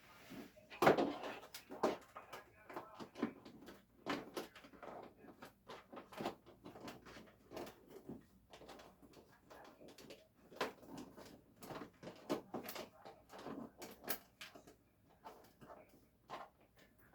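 Irregular clicks, knocks and rustles of things being handled, like a lid or compartment being opened, shut and fiddled with.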